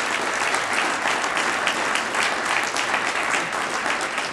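An audience applauding, with many hands clapping in a dense, steady patter that begins to thin out near the end.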